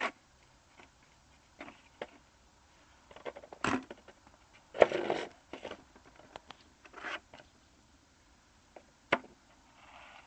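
Scattered short scrapes and knocks with quiet gaps between them: a sharp knock about a third of the way in, a longer, rougher scrape about halfway, which is the loudest, and another sharp click near the end.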